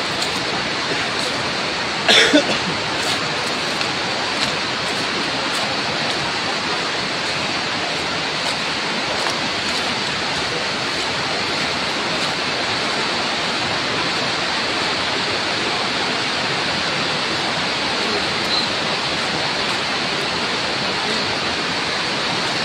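A steady, even rushing hiss with one brief louder sound about two seconds in.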